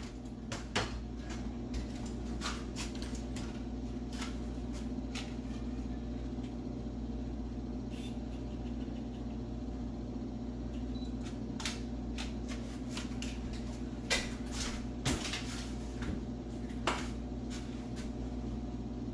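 Steady low hum with scattered sharp clicks and light knocks, several close together about three-quarters of the way through.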